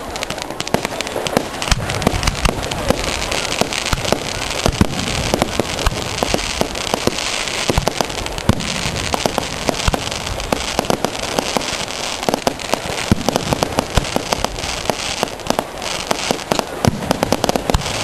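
Fireworks going off: a dense run of sharp pops and crackles over a steady hiss, with the odd deeper bang.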